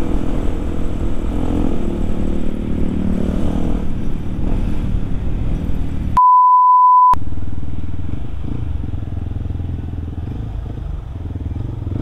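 Yamaha WR155R's single-cylinder four-stroke engine running while riding, louder in the first half and easing off after the middle. About six seconds in, a pure, one-second edited-in beep replaces all other sound, like a censor bleep.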